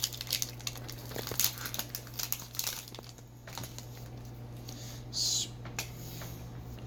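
Foil booster-pack wrapper crinkling as it is handled, in dense crackles for about three seconds and then lighter, with a brief swish about five seconds in, over a steady low hum.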